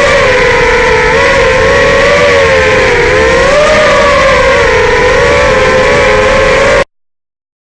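FPV racing quadcopter's four Racerstar BR2205 2600KV brushless motors spinning 5-inch props, a loud steady whine that rises and falls as the throttle changes. The sound cuts off suddenly near the end.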